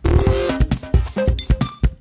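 Background music: an electronic track with a steady beat and quick melodic notes.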